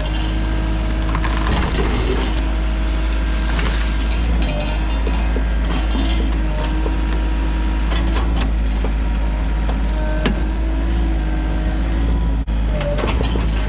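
Sany mini excavator's diesel engine running steadily under work, with scattered short knocks and clanks.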